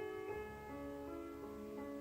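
Instrumental keyboard music: a slow melody of held notes changing every half second or so, over a low accompaniment.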